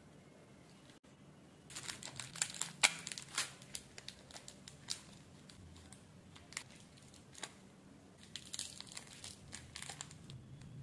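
Foil and plastic candy wrappers crinkling in the hands, with a foil sachet torn from a strip of mint sachets. The crackling comes in uneven clusters of sharp crinkles, starting after a quiet moment and thickening again near the end.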